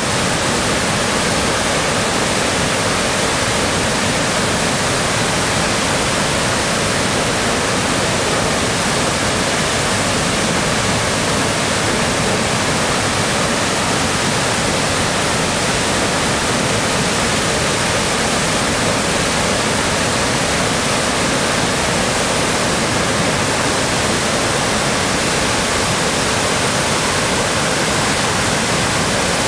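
High Falls of the Pigeon River, a tall waterfall in heavy flow, crashing down into a rocky gorge: a loud, steady rush of falling water with no let-up.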